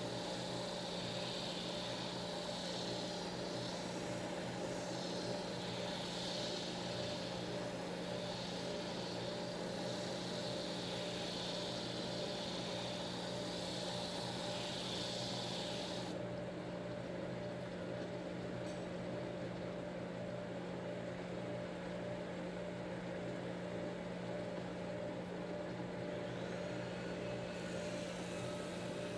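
Drum sander running steadily with a constant motor hum, and a hiss that swells and fades as the wooden propeller hub is pressed against the sanding drum. About halfway through, the highest part of the hiss drops away.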